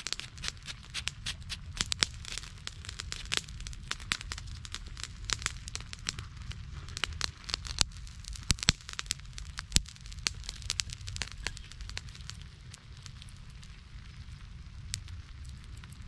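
Wood campfire crackling and popping over a steady low rumble; the pops come thick and fast, then thin out after about twelve seconds.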